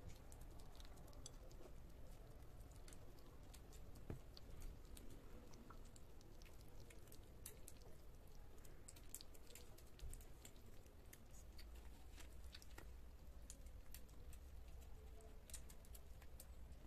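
Several kittens eating soft food from a shared plate: a faint, irregular patter of small smacking and chewing clicks.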